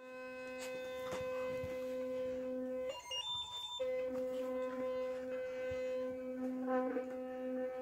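Sonicare electric toothbrush buzzing in use with a steady low hum. About three seconds in, the hum drops out for just under a second and a higher tone sounds in its place before the buzz resumes.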